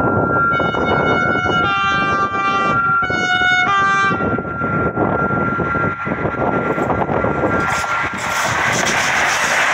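Bombardier Traxx electric locomotive of RENFE class 253 sounding its horn in several blasts, the pitch changing between them, as it approaches with a freight train. Near the end the rush of the train's wheels on the rails swells as the locomotive comes close.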